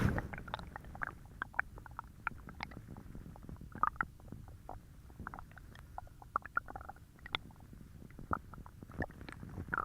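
Stomach growling: a low continuous rumble overlaid with many short, irregular gurgles and pops, a few of them noticeably louder.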